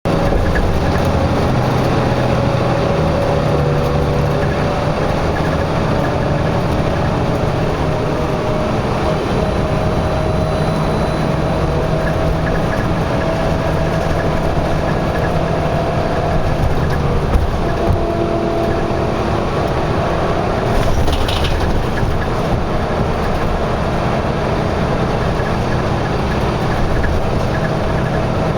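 Steady highway vehicle noise: engines and tyres running continuously, with engine tones that drift slowly in pitch, and a short hiss about 21 seconds in.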